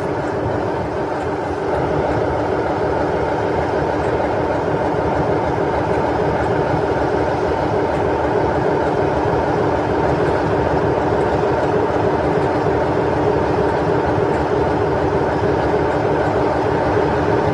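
British Rail Class 47 diesel locomotive 47746 idling, its Sulzer twin-bank 12-cylinder engine running at a steady, constant pitch.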